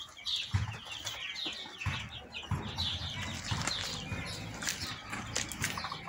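Backyard chickens making a run of short, high chirps, several a second, through the first half, over light knocks and rustling in the pen.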